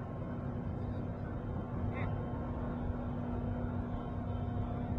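Steady low rumble of outdoor background noise with a constant low hum running through it, and a brief high chirp about two seconds in.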